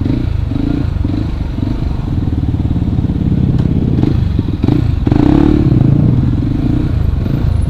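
Yamaha WR155R's single-cylinder engine running as the bike is ridden, heard close up from the rider's helmet camera. The engine note grows louder about five seconds in.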